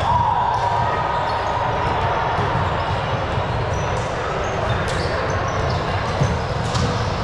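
Ball game in an echoing gym: sharp ball hits ring out a couple of times, with short high squeaks and players' voices over a steady room rumble.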